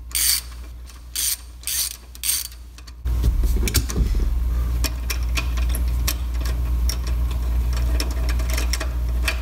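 Socket ratchet wrench backing out the shifter mounting bolts: a run of ratcheting strokes, about two a second, for the first three seconds. A steady low hum then comes in suddenly and continues to the end, with scattered lighter ratchet clicks over it.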